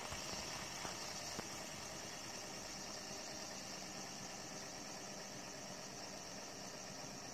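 Fidget spinner spinning flat on a tabletop, its ball bearing giving a faint, steady whir with a hiss, slowly easing off as it spins down.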